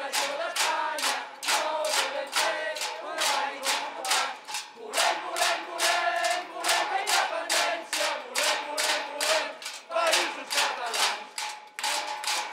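A small crowd chanting Catalan pro-independence slogans in unison ("we want independence, we want the Catalan Countries"), keeping time with rhythmic hand-clapping at about three claps a second.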